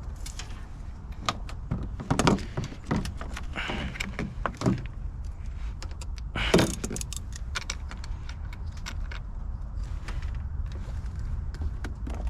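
A set of keys jangling and clinking as they are handled, in scattered bursts with a couple of louder rattles, over a steady low rumble.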